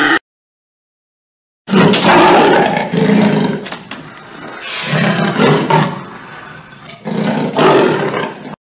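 A big cat, lion or tiger, roaring three times after a brief silence, each roar loud and rough with a deep growling base.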